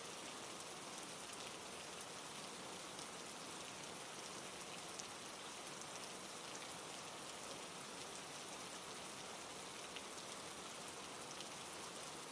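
Steady rain falling, an even hiss of rain with faint scattered drop ticks.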